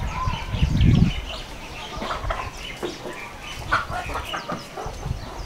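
Chickens clucking, many short calls one after another, with a brief loud low rumble about a second in.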